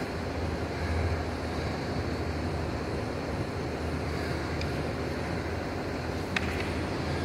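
Steady low rumble and hum of background noise with no speech, with a faint short click about six seconds in.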